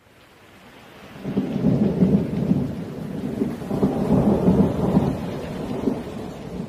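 Storm sound effect: rain with thunder rumbling. It fades in from silence, then swells in two long rolls of thunder.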